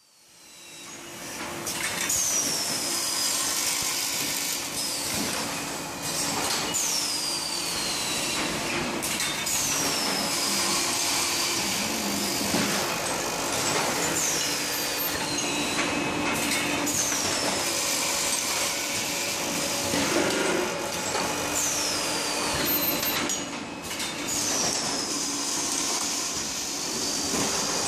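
An automatic double-mold grinding wheel forming press runs as a steady factory machine din. Every few seconds, as the press cycles, there is a high falling whine and short sharp noises.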